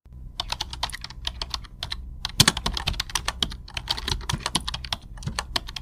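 Typing on a keyboard: rapid, irregular key clicks with a brief pause about two seconds in, over a low steady hum.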